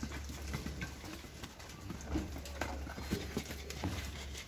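Patira–Hyderabadi cross goats' hooves tapping and scuffing on a tiled floor: scattered, irregular light taps.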